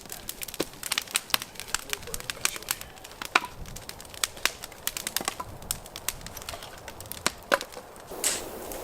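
Wood campfire crackling and popping, with irregular sharp snaps. Near the end a brief rush of noise gives way to a steady hiss.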